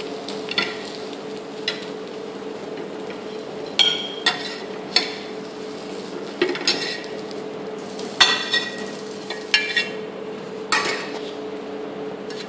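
A metal fork clinks and scrapes against a flat dosa pan about a dozen times as a dosa is folded and lifted off, each clink ringing briefly. A steady low hum runs underneath.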